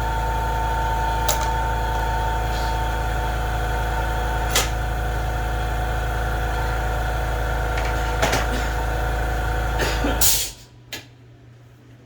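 Workshop air compressor running with a steady hum, then shutting off abruptly about ten seconds in. A few sharp clicks sound over it.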